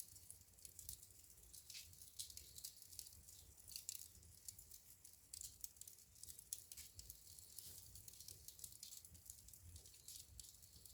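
Burning wood in a fireplace crackling faintly: a fast, irregular run of small pops and ticks, with a few louder snaps.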